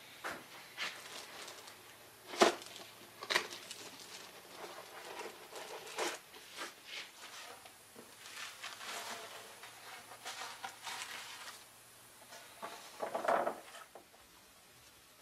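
Handling noise from a glass-fronted picture frame on a workbench: a few sharp knocks and taps, the loudest about two and a half seconds in, with soft rustling of the frame's old paper backing as it is lifted out.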